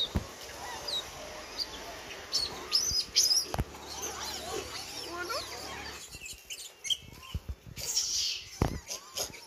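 A troop of rhesus macaques squeaking and chattering while they scramble for biscuits, with scattered clicks and knocks and one loud shrill squeal near the end.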